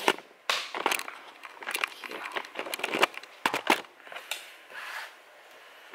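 Handling noise as a camera is set up and positioned: irregular clicks, knocks and rustling right at the microphone, thinning out after about four seconds.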